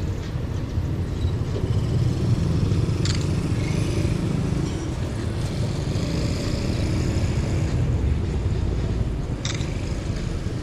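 Steady low rumble of road traffic, with a brief sharp click about three seconds in and another near the end.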